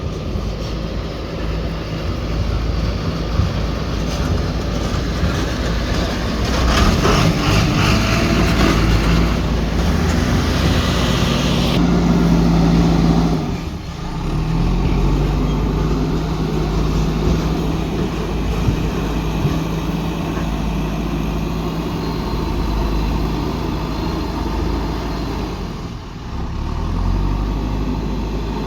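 Diesel engine of a JCB 3DX backhoe loader running under load, its pitch and loudness shifting as the machine works. It runs loudest from about a fifth of the way in to nearly halfway, dips sharply for a moment, then carries on more steadily.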